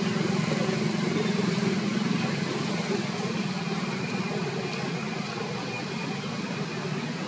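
A steady low engine hum that holds unchanged throughout, with a faint thin high tone running along above it.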